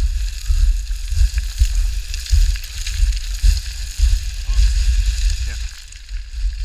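Wind buffeting the microphone in gusts, with a steady hiss above it; it eases near the end.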